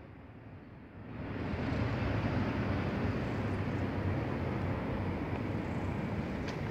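Steady outdoor street background noise with a low rumble, as of distant traffic. It comes up over the first second or so, then holds level.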